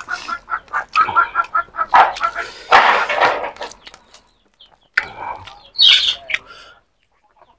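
Domestic chickens clucking: a quick run of short, evenly spaced clucks, then a few louder, harsher calls.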